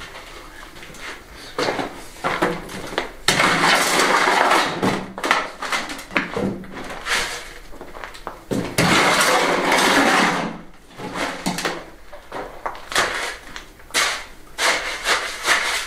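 A shovel scraping through wet limecrete mix in a wheelbarrow as it is scooped out and thrown into a floor void: two long gritty scrapes, about three and nine seconds in, with scattered knocks and taps of the blade between them.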